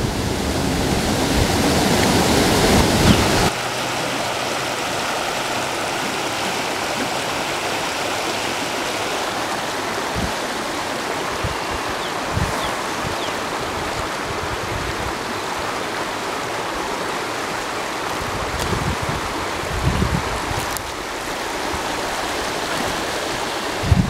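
Steady rush of white water pouring over a low creek waterfall and churning in the pool below, louder for the first few seconds.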